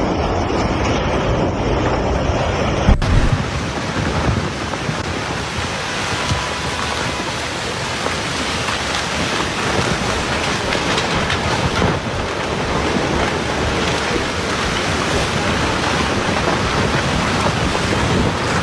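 Storm noise: heavy rain and wind as a steady dense rush, with a sudden loud thump about three seconds in, where the sound changes abruptly.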